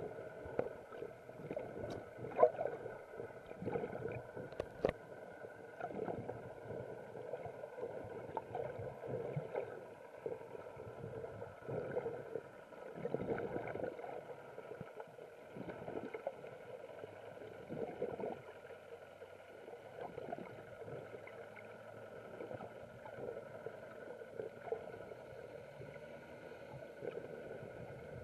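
Muffled underwater sound from a camera held under the surface: irregular gurgling and sloshing of water over a faint steady hum, with a few sharp clicks in the first five seconds.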